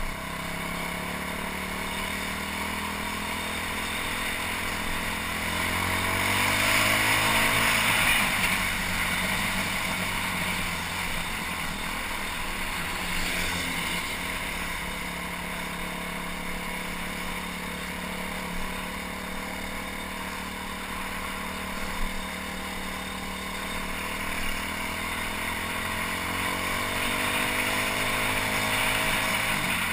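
BM Motard 200 single-cylinder four-stroke engine pulling the bike along the road, with wind rush. It picks up speed over the first several seconds, eases off, holds a steady speed through the middle, then speeds up again near the end. The engine has developed an intermittent ticking, uneven revs and dips in power after being filled with questionable fuel.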